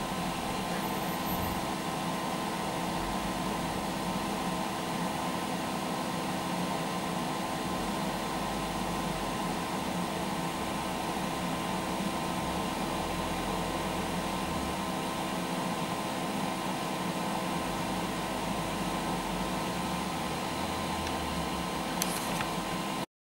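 Steady hum and hiss of a MIG/MAG welding machine's cooling fan running while the machine stands switched on, with one short click near the end.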